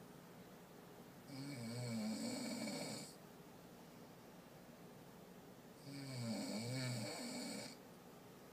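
A person snoring: two long snores, each lasting nearly two seconds, about four and a half seconds apart.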